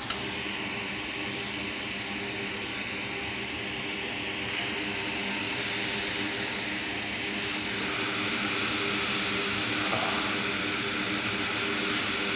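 Hot air rework station blowing a steady rush of air, getting louder and brighter about five and a half seconds in, over a low bench hum. There are two small clicks at the very start.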